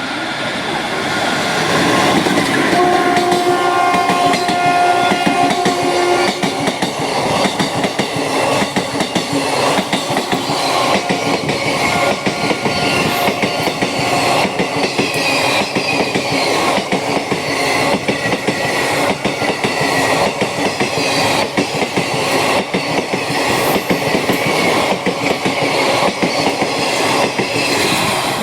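Express train (the Black Diamond Express) passing at speed. Its locomotive sounds a held horn for about three seconds near the start, then the coaches' wheels clatter rhythmically over the rail joints with a high wavering squeal.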